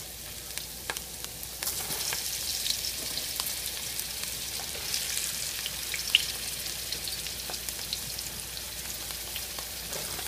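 Russet potato wedges sizzling in hot canola oil in a stainless steel skillet, the first fry at about 325 °F. A steady crackling hiss, with scattered light clicks as more wedges go into the pan.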